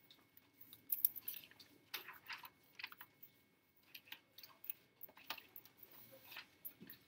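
Faint, irregular small clicks and rustles, a few every second.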